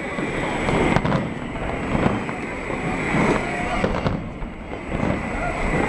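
Aerial fireworks bursting, with a few booms about a second apart, over the chatter of a large crowd.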